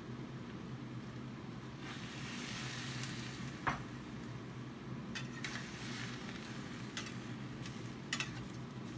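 Food sizzling as it is stir-fried in a large wok, the hiss swelling about two seconds in. A spatula strikes and scrapes the pan several times in short clinks. A steady low hum runs underneath.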